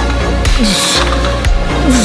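Background music with a deep, steady bass line and a beat with cymbal-like hiss.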